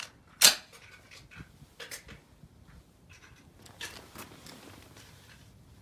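Handling of a Rock River Arms .308 semi-automatic rifle whose bolt has not gone fully into battery: one sharp clack about half a second in, then a few faint clicks.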